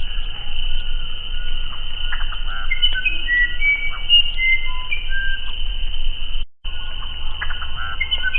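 Musician wren (uirapuru) singing: a run of short, clear whistled notes that jump between different pitches, over a steady high background hiss. The sound cuts out for a moment about six and a half seconds in.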